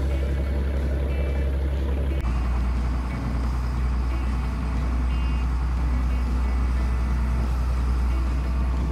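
Fishing boat's Mitsubishi inboard engine running steadily at cruising speed, a deep even hum, with water rushing past the hull. Faint short double beeps come about every four seconds.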